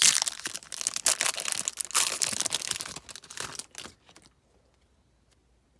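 Plastic baseball card pack wrapper being torn open and crinkled: a dense crackling rustle for about three and a half seconds that then stops.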